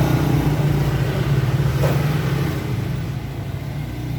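A motor vehicle's engine running steadily with a low hum, a little quieter after about three seconds.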